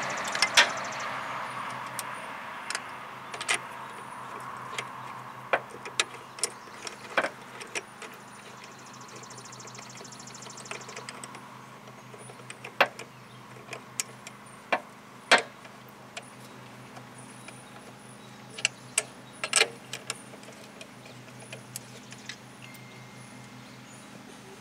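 Scattered sharp metallic clicks and taps of a socket extension and tools on bolts in a car's engine bay, with a short run of rapid fine clicking about nine seconds in, over a faint steady low hum.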